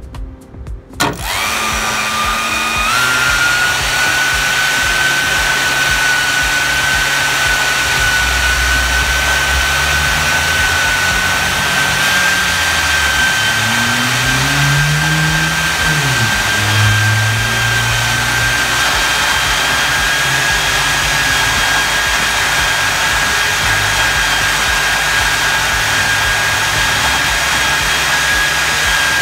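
A 120 mm electric ducted fan in a 3D-printed housing starts with a loud bang about a second in, from the speed controller's hard-start setting left on, then runs steadily with a loud rushing noise and a high whistle that steps up in pitch at about three seconds. The owner puts the whistle down to a rotor that needs more balancing.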